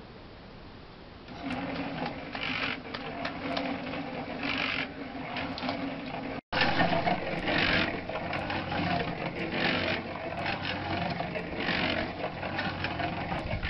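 Small portable cement mixer starting up about a second in and running steadily, its drum churning a wet cob mix of soil and straw, with a swish of the load tumbling inside the drum every second or two.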